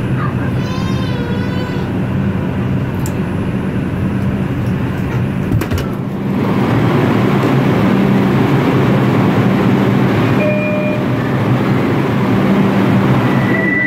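New York subway train braking into a station and coming to a stop, with a steady low motor hum. A louder steady rush of noise comes in about six seconds in, and there are short high brake squeals, one near the end.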